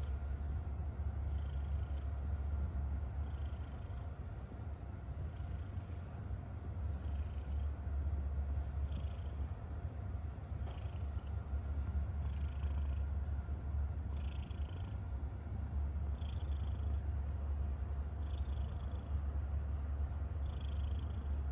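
Tabby cat purring steadily while being stroked: a low, even rumble with a faint hiss that comes back about every two seconds, a sign of a contented cat.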